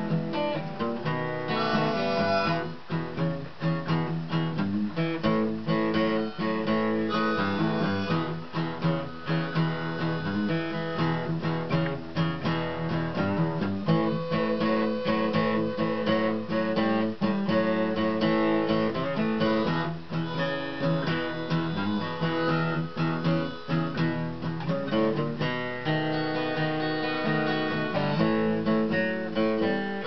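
Dreadnought acoustic guitar played solo, picking and strumming the instrumental opening of a blues tune.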